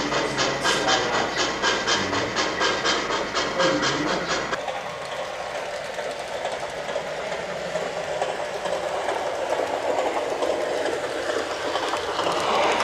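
Model trains running on a layout. For the first few seconds there is a rhythmic beat of about four strokes a second; then the sound changes suddenly to a steady hissing rumble that grows louder near the end.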